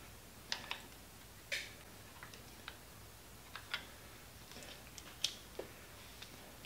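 Faint, irregular clicks and taps of small hand-held metal parts, a razor blade and grinder handle being fitted together as a makeshift knife, over a low steady hum.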